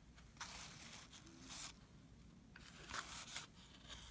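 Basketball trading cards sliding against each other as a freshly opened pack is flipped through by hand: faint papery swishes, one about half a second in lasting about a second, another near three seconds.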